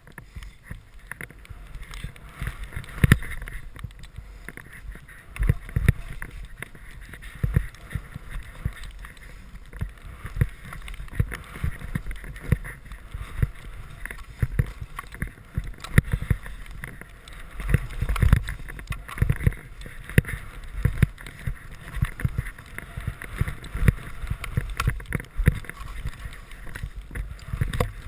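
Skis running fast through deep powder snow: a steady rush of wind and snow hiss on the microphone, broken by frequent dull low thumps.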